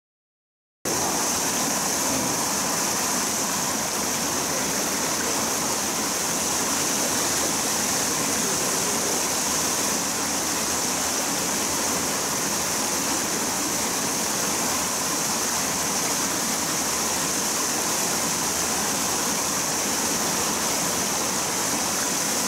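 Water spilling over a low weir and rushing through a rocky mountain stream: a steady rush that starts suddenly about a second in, after silence.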